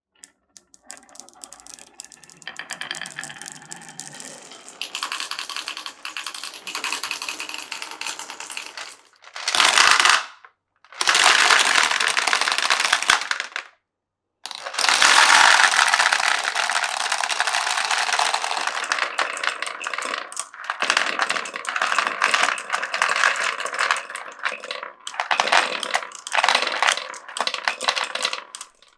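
Marbles rolling and clattering along the wooden and clear-plastic tracks of a marble run: a dense, rattling run of small clicks that breaks off abruptly twice, about ten and fourteen seconds in.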